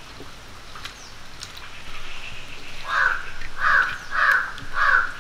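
A crow cawing four times in quick succession, starting a little past halfway; the caws are harsh and evenly spaced.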